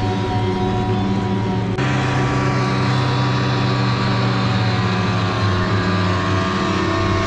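Snowmobile engine running steadily while riding along a trail. Its tone changes abruptly about two seconds in, then holds steady.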